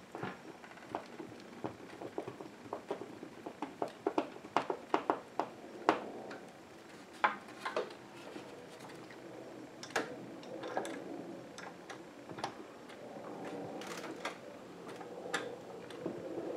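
Irregular clicks and light taps as screws are started by hand through a wooden coat rack into plastic wall anchors, the top two screws being caught before tightening. The clicks come thickest in the first half, then come sparser.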